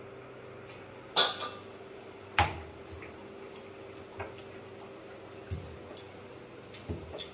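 Steel kitchen utensils and cookware clinking and knocking at a gas stove: two sharp clinks a little over a second apart in the first few seconds, then a few softer knocks, over a steady low hum.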